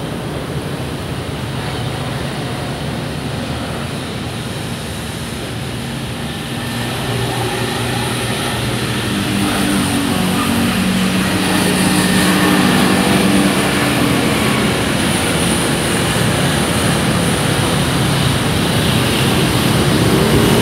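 Road traffic noise: a steady rush, with a motor vehicle's engine hum getting louder from about seven seconds in.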